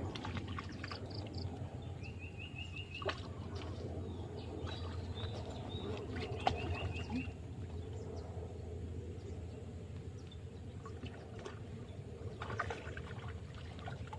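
Outdoor canal-side ambience: a steady low rush with faint water sounds and scattered light clicks, with two short runs of quick bird chirps, about two and six and a half seconds in.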